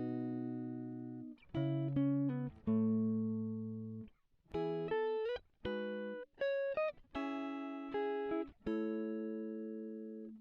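Background music: a guitar playing a slow line of plucked notes, each ringing and fading before the next.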